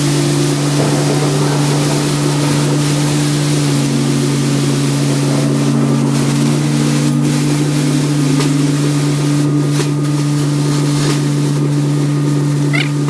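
Scania P410 XT truck's 13-litre inline-six diesel engine idling steadily, a constant low hum with a steady hiss over it.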